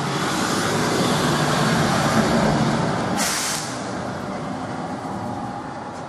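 A heavy vehicle, bus or truck, rumbles past on the street, growing louder over the first few seconds. About three seconds in its air brakes give a short sharp hiss, and then the rumble slowly fades away.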